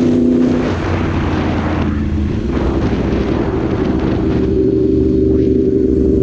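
Yamaha R1's crossplane inline-four with an Austin Racing exhaust, heard from the saddle while riding, with wind noise over it. The engine note changes about a second in, then holds steady.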